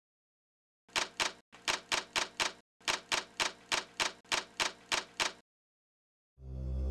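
Typewriter keystroke sound effect: about sixteen sharp key strikes in short runs, about four a second, with brief pauses between runs. Music fades in near the end.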